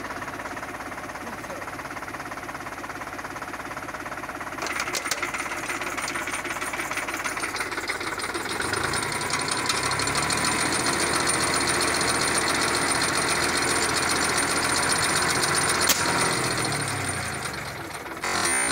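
Tractor engine running with its rear-mounted air compressor pumping; a hiss of air joins about five seconds in, and the engine note rises about halfway through and falls again near the end, with one sharp click shortly before it drops.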